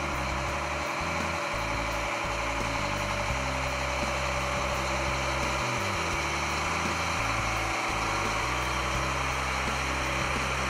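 Case IH STX500 Quadtrac's diesel engine running steadily as the tracked tractor moves slowly at low throttle.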